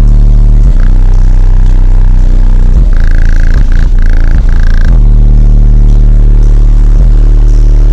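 Car subwoofers playing a bass track at extreme level, heavily distorted: deep sustained bass notes that change pitch every couple of seconds, with a short pulsing higher tone in the middle.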